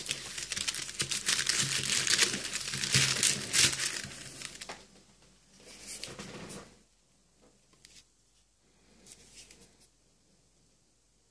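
Red paper wrapping of a firecracker pack being torn open and crinkled by hand for the first four and a half seconds. A few fainter rustles follow, then it goes near quiet.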